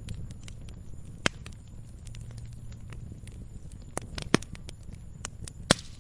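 Campfire burning: a steady low rumble of flames with many small crackles and four sharp pops from the burning wood, the loudest near the end.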